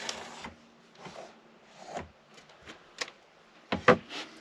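Sound deadening sheet being cut and handled: a scraping rustle at the start, then scattered light taps and knocks, the loudest a sharp knock near the end.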